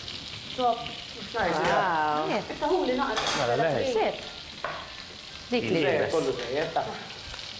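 Food sizzling in a hot frying pan, a steady frying hiss, with a voice heard briefly now and then over it.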